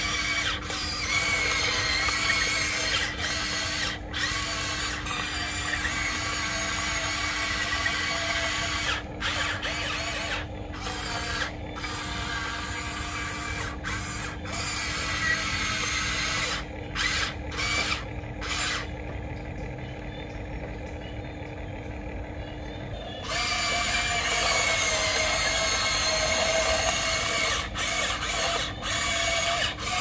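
Huina 1594 remote-control excavator's small electric motors whining as the boom, arm and bucket move, cutting out briefly now and then and stopping for about four seconds past the middle, over a steady low hum.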